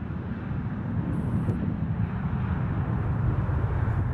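Steady low rumble of a United Express regional jet's engines as it rolls along the runway, mixed with wind buffeting the microphone.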